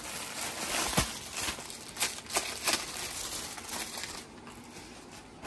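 Rustling and crinkling as a stack of cloth tops is handled, with a few sharp crackles about one, two and two and a half seconds in. It grows quieter near the end.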